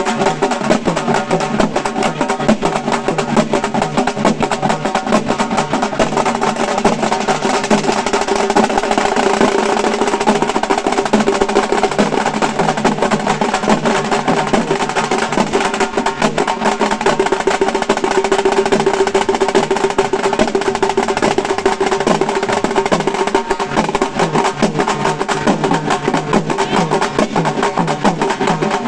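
Halgi ensemble: Maharashtrian frame drums beaten fast with sticks in a loud, dense, unbroken rhythm.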